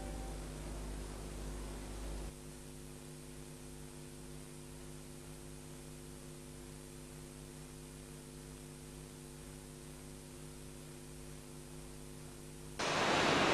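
Steady electrical mains hum, a buzz of several even tones, after the last of some soft music fades out about two seconds in. Near the end a much louder, noisy sound cuts in suddenly.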